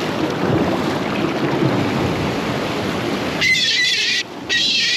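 Wind and water noise, then about three and a half seconds in a hooked gull gives two loud, long, wavering high-pitched distress calls with a short break between them.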